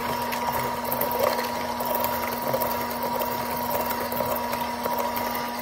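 Electric mixer running steadily, its wire whisk beating butter and erythritol in a stainless steel bowl: a steady motor whine.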